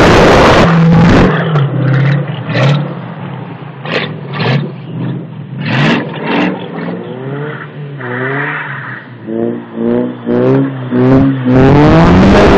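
Cars drifting on a snow-covered road. A car passes close by with a loud wash of engine and tyre noise. In between, engines rev repeatedly farther off in rising pitch sweeps, and near the end another car slides close past with a loud wash again.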